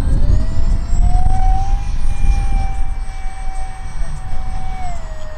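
A 50mm electric ducted fan on a 4S battery, powering a 3D-printed Avro Vulcan model in flight, with a steady high whine. The pitch rises over the first second or two, holds, then drops near the end, over a low rumble.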